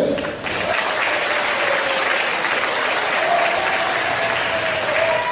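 Audience applauding, a steady sustained clapping that fills in about half a second in.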